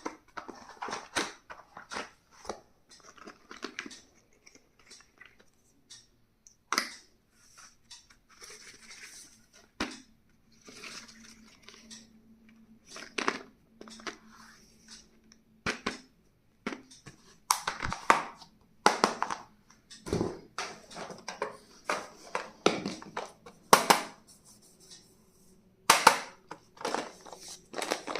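Stationery being unpacked by hand: plastic packaging crinkling and rustling, with irregular sharp clicks and taps as items are picked up and put down.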